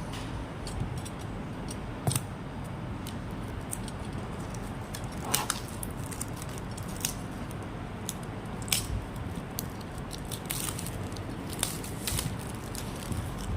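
Scattered clicks, taps and crinkles of a phone box and its packaging being handled and opened, over a steady low background rumble.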